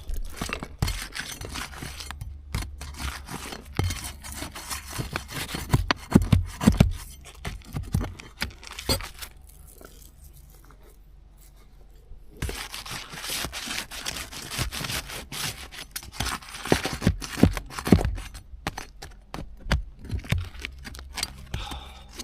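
Roof shingle being pried up and torn loose, with irregular crackling, tearing and scraping and a lull near the middle. The shingle is ripping, a sign that it has gone brittle.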